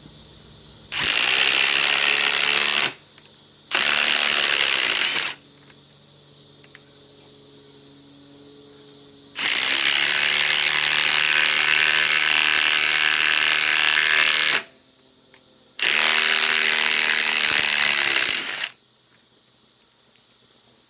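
Ryobi ONE+ HP compact cordless impact wrench driving a lag screw of about 3.5 inches into wood, hammering in four runs with short pauses between, the third run the longest.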